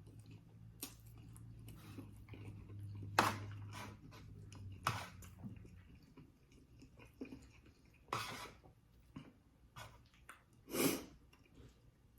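A person chewing food close to the microphone, with soft wet mouth clicks and a few short, louder breaths.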